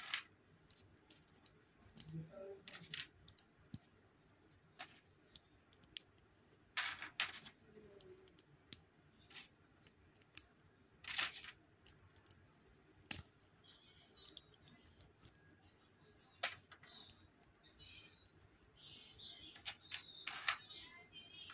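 Plastic Lego pieces handled and pressed together in the fingers: scattered light clicks and taps, with a few louder snaps.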